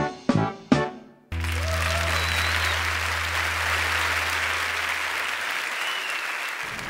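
A piece of music ends with a few short notes about a second in. Then people start applauding, steadily, over a low steady hum.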